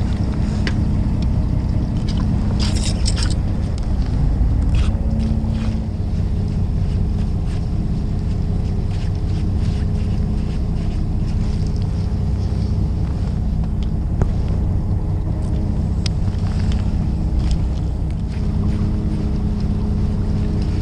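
Fishing boat's engine running steadily with a low drone, over wind and water noise. A brief rattle comes about three seconds in, and a few light taps follow.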